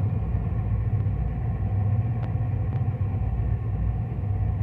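Ribbon blender running, its stainless steel ribbon agitator turning on the shaft in the trough: a steady low hum, with two faint ticks in the middle.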